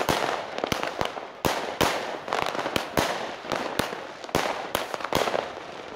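Fireworks going off: a fast, uneven series of sharp bangs, about two or three a second, with crackling between them.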